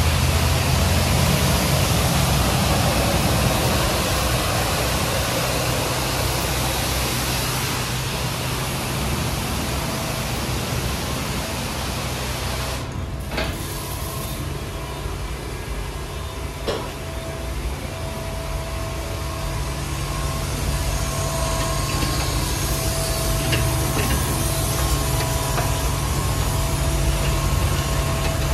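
Hydraulic-drive friction rollover car wash machine running: water spraying with a hiss over a low machinery hum. About halfway through the sound drops briefly, then comes back as a steadier hum with a faint steady whine.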